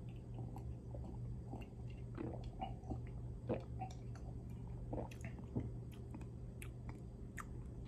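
Faint sipping, swallowing and other mouth sounds of a person drinking from a glass and tasting, with scattered small clicks over a low steady hum.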